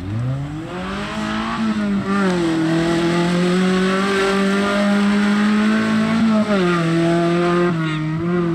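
Off-road race 4x4's engine revving up hard under load as it drives through mud. It holds high revs for several seconds, then drops back about six seconds in.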